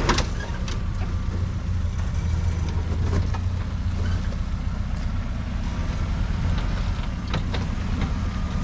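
Modified Suzuki 4x4's engine running at low revs as it crawls down rock ledges, a steady low drone, with a few short clicks and knocks.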